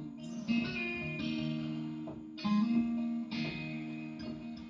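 Instrumental gap in a song: guitar chords strummed a few times, each left to ring.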